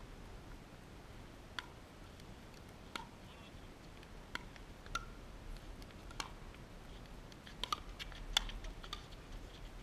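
Pickleball paddles hitting a plastic pickleball: sharp, separate pops, spaced a second or more apart at first, then several in quick succession near the end as a rally gets going.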